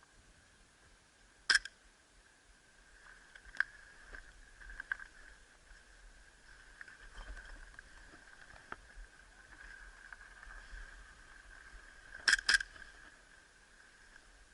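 Airsoft pistol shots: scattered sharp single cracks, the loudest about a second and a half in, with a quick pair near the end. A faint steady high hum runs underneath.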